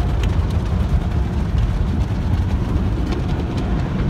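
Car wash wraparound brushes scrubbing the car's body with foam, heard from inside the cabin: a steady rumbling swish with many light slaps of the cloth strips.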